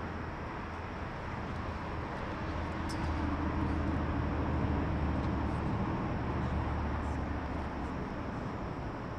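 Low steady hum of a motor vehicle's engine, growing louder for a few seconds in the middle and easing off again.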